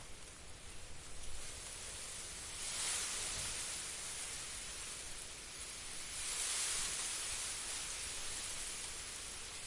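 Wind rustling through tall grass in an open field, a steady hiss that swells in two gusts, about three seconds in and again about six seconds in.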